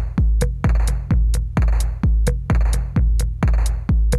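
Electronic dance music with a steady drum-machine beat: a heavy kick drum about twice a second with sharp hi-hats over it.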